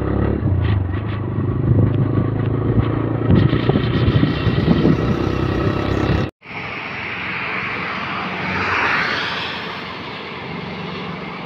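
TVS Raider 125's single-cylinder engine running as the motorcycle rides along. About six seconds in the sound cuts out for an instant and gives way to a quieter, steady road hiss that swells once, as of a vehicle going by.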